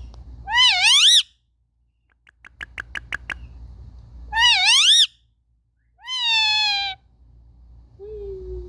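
Indian ringneck parrot giving three loud squawking calls, each under a second long; the first two waver up and down in pitch, the third is steadier and falls slightly. A run of sharp clicks comes just before the second call.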